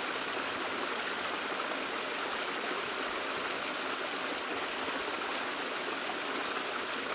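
A steady, even rushing noise like running water, with no breaks or separate events.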